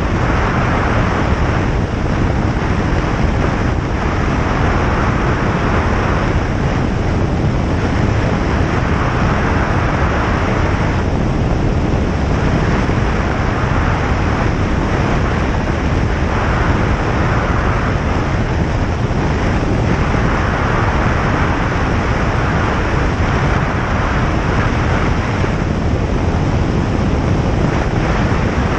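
Single-engine light aircraft's piston engine and propeller running steadily in flight, mixed with rushing airflow noise whose hiss swells and fades every few seconds.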